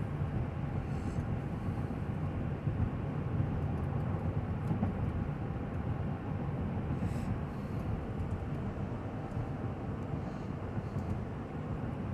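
Steady road and tyre rumble inside the cabin of a 2020 Chevy Suburban cruising at a constant speed on cruise control, with four-wheel drive engaged.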